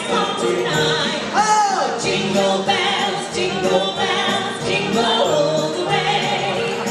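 A singer performing a Christmas song over backing music.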